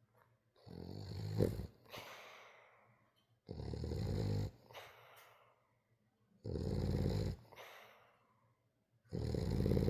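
French bulldog snoring loudly. Four rattling snores about three seconds apart, each about a second long and followed by a fainter breath.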